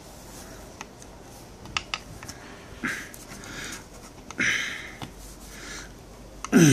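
Nylon paracord being handled and drawn through a weave: short swishing rasps as the cord slides and is pulled tight, with a few small clicks. A brief, loud, low sound falling in pitch comes near the end.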